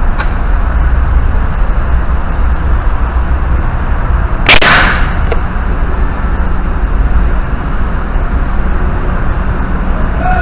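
Steady low rumble of wind and movement on a body-worn camera's microphone during an airsoft game, with one sharp hissing crack about four and a half seconds in.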